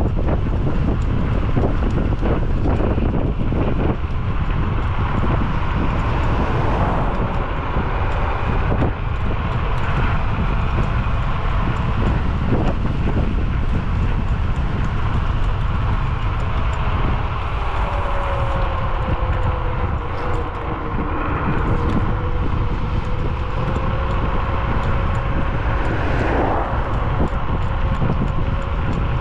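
Wind rushing over the microphone of an electric scooter in motion, with a faint whine that drops in pitch about eighteen seconds in and then holds steady.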